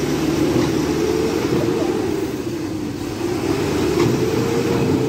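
Tata 1109 truck's diesel engine revving under load, the pitch climbing and dropping back twice, as the truck stuck in mud tries to pull out.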